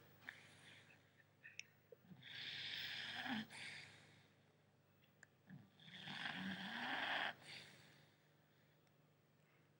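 Five-month-old English Staffordshire bull terrier puppy snoring in its sleep: two snores, each a little over a second long, about three and a half seconds apart.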